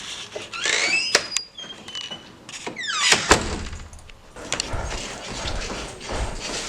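Staged foley sound effects: mechanical clicks and thunks, with rising swishes about a second in and again about three seconds in, and a low rumble from about three seconds on.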